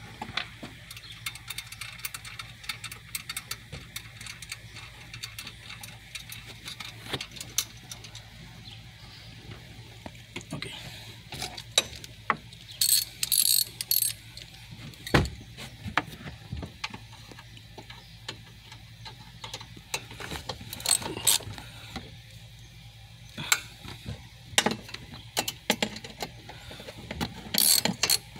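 Socket ratchet clicking in short runs, with pauses and scattered knocks between, as a 10 mm airbag mounting bolt is tightened.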